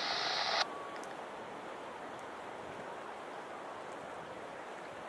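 Steady wash of surf and wind on the microphone, opening with a brief burst of scanner-radio static that cuts off under a second in.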